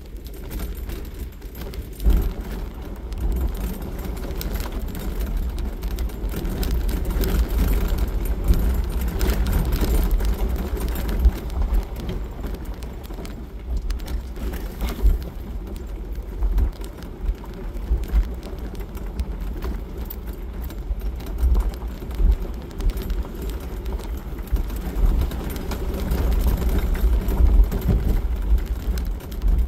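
Jeep Wrangler driving slowly on a gravel road, heard from inside the cab: a steady low rumble of engine and tyres on gravel, with small rattles and knocks throughout.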